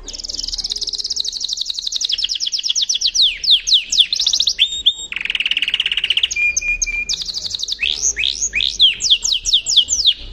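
Yorkshire canary singing a long song of fast high trills and quick downward-sweeping notes, with a lower rolling trill about halfway through. It is the song of a canary coming into breeding condition.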